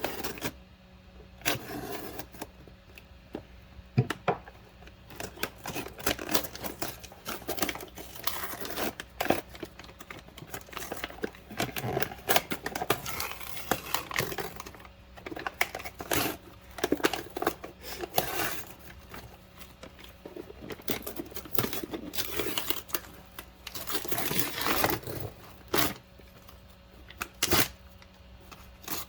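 Cardboard and paper casing of a firework fountain being torn and prised open by hand: irregular tearing, scraping and crinkling with sharp clicks and short bursts.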